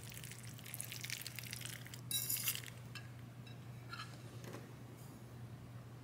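Metal fork stirring pasta in a ceramic bowl, scraping and clicking against the bowl, with a louder ringing clink about two seconds in and a few light taps after. A steady low hum runs underneath.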